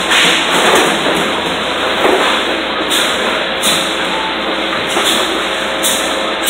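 Loud, steady din of a metal fabrication shop, with a few louder knocks and surges.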